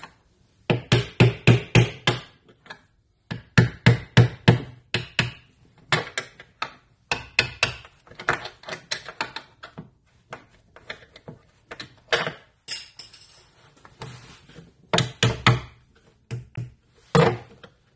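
Claw hammer striking a tool held against a concealed hinge on a wooden cabinet door, knocking the existing hinge out. The blows come in quick runs of five or six, about four a second, with pauses between and a few single knocks near the end.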